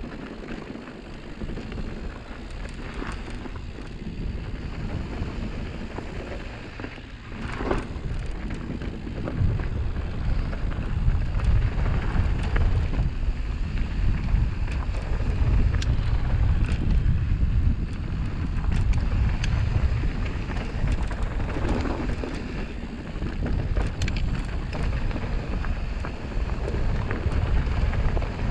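Mountain bike rolling fast down dusty, rocky dirt singletrack: wind buffeting the microphone and a steady tyre rumble, with small clicks and rattles from the bike over rocks. It grows louder about eight seconds in as the speed picks up.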